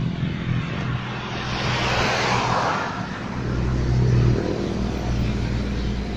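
Road traffic passing: the tyre and wind hiss of a passing vehicle swells to a peak about two seconds in and fades, over a low engine drone that grows loudest about four seconds in.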